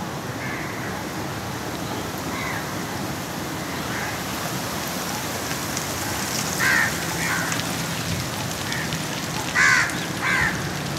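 Crows cawing: a pair of harsh calls a little past halfway and another louder pair near the end, with fainter calls earlier, over a steady background hiss.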